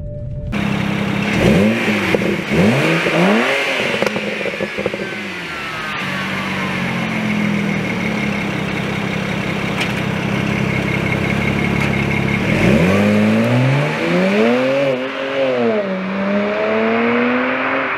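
BMW N54 twin-turbo inline-six revved several times, its pitch rising and falling over a second or two each time, and running steadily at a constant pitch in between.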